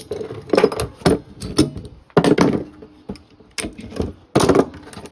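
Hammer blows setting aluminium rivets through a new brake lining into a Caterpillar D4's steel brake band: a dozen or so sharp metallic strikes at an uneven pace, some leaving a brief ring.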